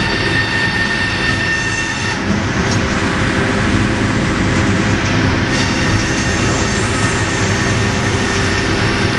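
Sawmill log carriage running along its track past the saw, a steady, loud rolling and machinery rumble, with a thin high whine over it for the first two seconds.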